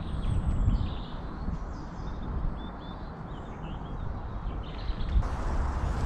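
Small birds chirping in short, scattered calls, over a low rumble of handling or wind on the microphone. About five seconds in, a louder rustling hiss sets in.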